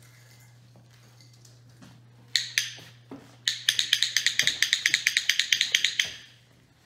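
Dog-training clicker: two clicks, then a fast, even run of clicks, about ten a second for some two and a half seconds, used to call the puppies over.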